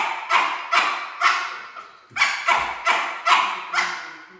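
A dog barking repeatedly, about two to three barks a second with a brief pause about two seconds in, each bark trailing off slowly in the room's echo.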